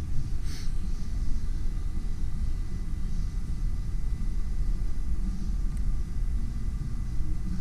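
Steady low rumble with a faint, steady high-pitched tone above it and a brief hiss about half a second in.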